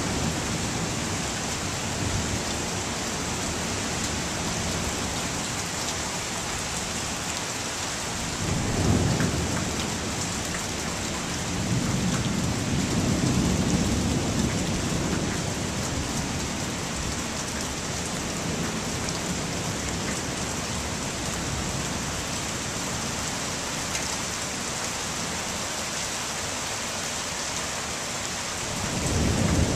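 Heavy rain falling steadily in a thunderstorm, with rolls of thunder rumbling low: one about a third of the way in, a longer one a few seconds later, and another near the end.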